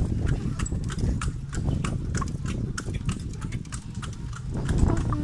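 Horse's hooves clip-clopping on a concrete road as it pulls a carriage, a quick uneven run of sharp hoof strikes over a low rumble.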